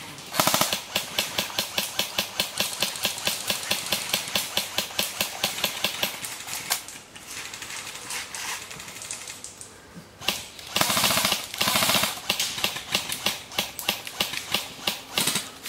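Airsoft electric rifle firing at a rapid rate of about four sharp shots a second for roughly six seconds, then after a pause of a few seconds a faster burst followed by more shots.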